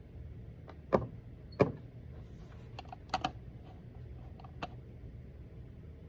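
A handful of knocks and clicks from objects being handled at a desk: two sharp knocks about a second apart, then a quick double click and a lighter click, over a steady low hum.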